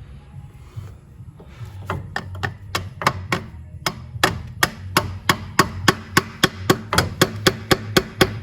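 Rapid, evenly spaced taps, about three a second, driving a new gearbox shaft seal home through a length of pipe used as a driver. They start a couple of seconds in, hesitant at first, then steady.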